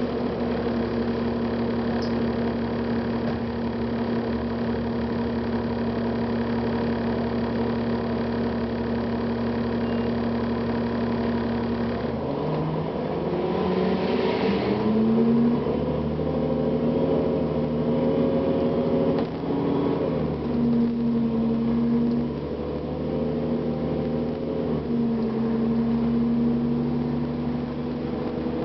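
A 2009 Gillig Advantage transit bus's Cummins ISL diesel engine runs at a steady idle, then about twelve seconds in it revs up as the bus pulls away. Its pitch rises and steps through several changes, with a brief hiss soon after the pull-away.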